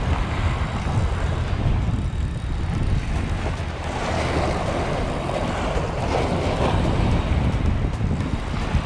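Wind buffeting the microphone in a steady low rumble, with waves washing and splashing against rocks.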